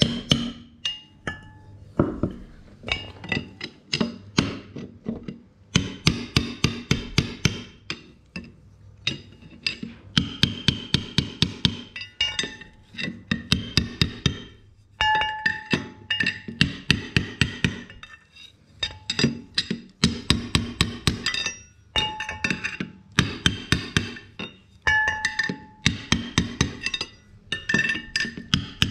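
Bursts of rapid hammer taps on metal, several strikes a second in runs of one to three seconds with short pauses between, some runs leaving a ringing metallic tone.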